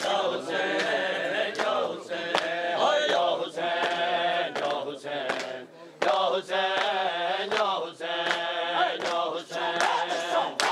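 Men's voices chanting a noha, a Shia lament, together, with regular sharp slaps of hands beating chests (matam) keeping time under the singing.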